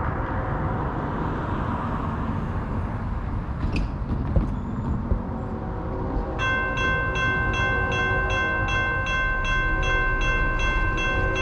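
A railroad grade-crossing warning bell starts up about six seconds in and rings in quick, even dings, about three or four a second, as a train approaches. Before it there is a steady low rumble.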